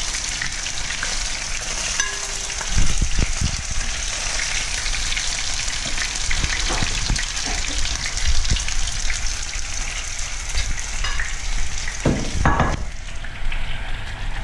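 Battered barramundi fillets sizzling as they shallow-fry in oil in a pan, a steady high hiss. A few clunks of metal tongs are heard as fillets are lifted out. The sizzle drops away near the end.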